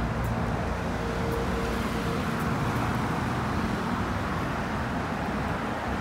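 Steady street traffic noise of cars passing on a nearby road, with a brief faint tone lasting about a second near the start.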